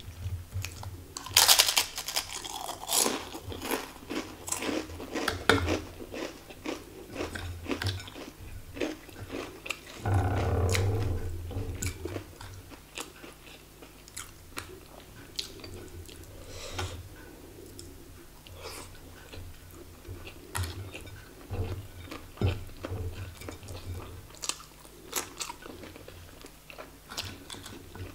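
Close-up mouth sounds of a person biting and chewing crisp fried wonton skins, with crunchy bites loudest a couple of seconds in and softer chewing clicks after. A longer, duller stretch of noise comes about ten seconds in.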